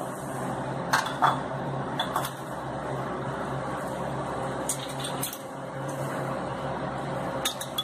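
A spoon clinking lightly against bowls a handful of times, over a steady background hiss and hum.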